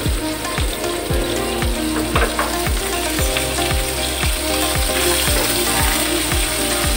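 Sliced onions sizzling in hot oil in a nonstick pan, stirred and pushed around with a plastic spatula. Background music with a steady beat runs underneath.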